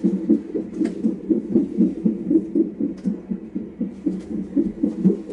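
Fetal heart monitor's Doppler speaker playing the baby's heartbeat as a fast, even whooshing pulse, about two and a half beats a second.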